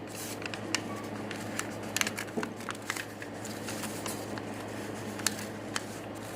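A sheet of paper being folded and creased by hand: scattered crisp crackles and rustles as the fold is pressed down.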